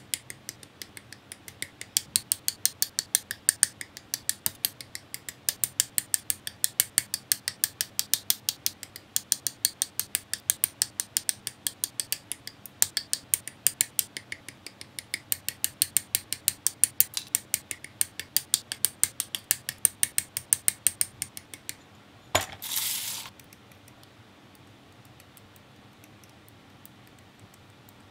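Rapid sharp plastic clicks from building a plastic model kit, with parts nipped off the runner and snapped together, about three to four a second. The clicks stop about 21 seconds in, followed by a short rustling sweep of about a second.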